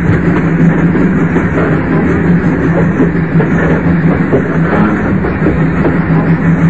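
Train running at speed: a steady, loud rumble of wheels and carriage with a constant low hum.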